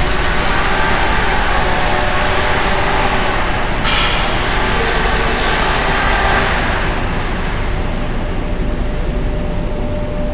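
Steady mechanical noise of industrial machinery running, with a faint steady hum. A brighter hiss rides on top and eases off about seven seconds in.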